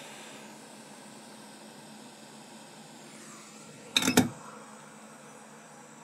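Hot-air rework station blowing with a steady airy hiss that eases off in the first half-second. About four seconds in there is one brief, loud clatter.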